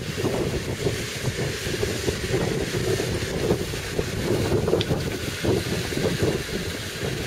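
Land Rover Defender engine running as the vehicle crawls tilted along a ditch on a side slope, mixed with gusty wind buffeting the microphone.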